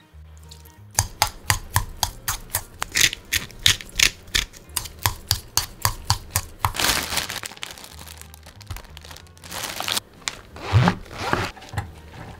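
A utensil clicking against a stainless steel bowl as shredded carrot is tossed and mixed, about four to five quick clicks a second, followed by a few rustling swishes of the carrot against the metal. Soft background music plays underneath.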